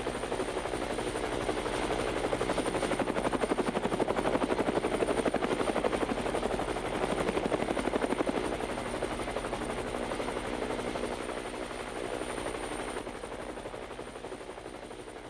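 Helicopter rotor chopping steadily, growing louder to about the middle and then fading away as it flies off.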